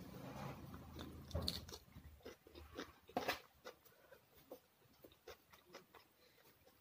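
Close-up chewing of a mouthful of rice and dal, with soft wet clicks and smacks as fingers mix rice into dal on a steel plate. Busier in the first three seconds, then sparser and fainter.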